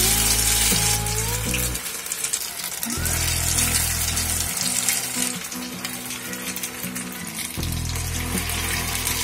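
Batter-coated bread-and-potato chops deep-frying in hot oil in a kadhai, a steady sizzle throughout. Background music with sustained low notes plays along.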